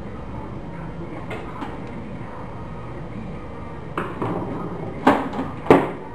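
Sheet-metal side panel of a desktop computer tower case being worked loose and pulled off. A few light metal clicks and knocks lead to two louder clanks, each with a short ring, about five seconds in.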